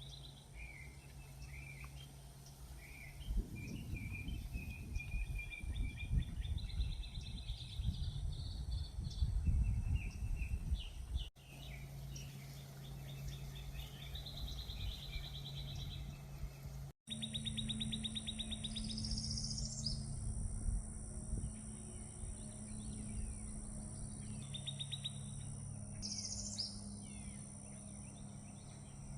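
Several songbirds singing in the morning, with repeated fast trills and chirps. A low rumble sits under the song in the first half, and a steady low hum runs beneath it, with two brief dropouts where the recording cuts.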